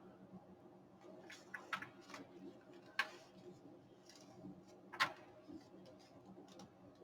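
Paper and craft supplies handled on a desk: a few sharp clicks and taps, the loudest about three and five seconds in, over a faint steady hum.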